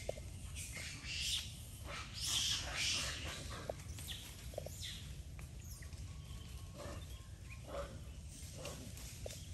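Forest ambience: scattered short, high-pitched animal calls and chirps, some louder about two to three seconds in, over a low steady rumble.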